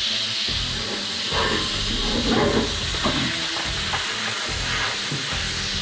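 Compressed air hissing steadily and loudly, with faint handling noises underneath.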